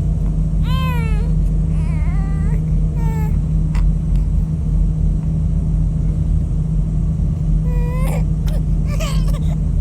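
Steady low drone of a ship's engine, with a baby's short cries over it, about five of them, each rising and falling in pitch.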